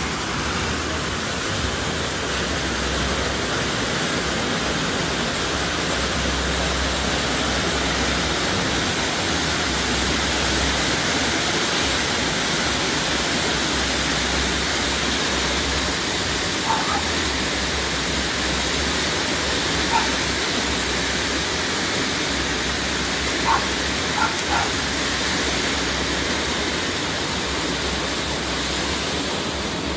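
Mother's Yoga Rose Bada Peafowl ground fountain firework spraying sparks from five nozzles with a steady, loud hiss throughout its burn. A few faint, brief chirps sound over it past the middle.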